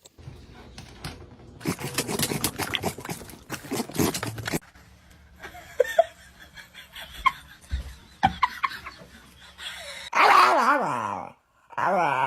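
Several seconds of dense clattering, then a dog's scattered short yelps, then two long wavering cries near the end.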